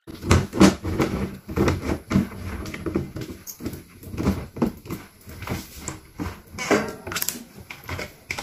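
Plastic water-filter housings and cartridges being handled: irregular knocks and clatter of plastic on plastic as the cartridges are fitted into their canisters.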